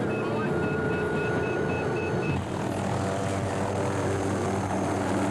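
Hughes 500D helicopter running with its rotor turning and a high turbine whine, taking off. About two and a half seconds in, the sound briefly dips and changes to a steady, lower drone of several tones.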